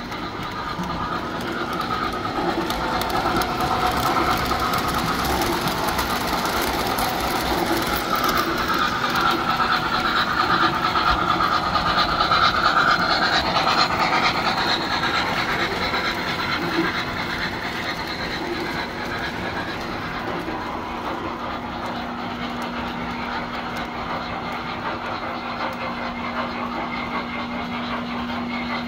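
Tinplate model trains running on three-rail track: a steady rolling rattle with fine clicking of wheels over the rail joints, growing louder until a little before halfway and then easing off. A steady low hum comes in about two-thirds through.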